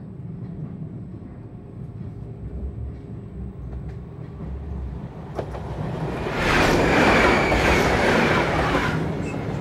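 Steady low rumble of a moving train heard from inside the carriage. About halfway through, a loud rush starts suddenly as another train passes close by on the next track, then eases off near the end.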